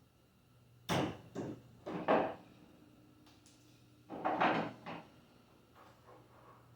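Short wooden knocks and scrapes in two groups a few seconds apart, as a glued-on piece of a cabinet door is worked loose with a chisel.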